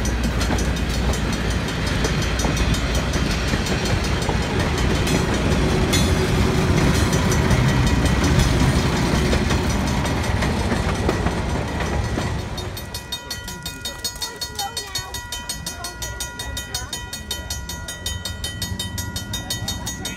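Passenger coaches and a caboose of an excursion train rolling past over a level crossing, a steady rumble of wheels on the rails. About twelve seconds in the train has gone by and the sound drops, leaving the crossing's warning bell ringing rapidly and evenly.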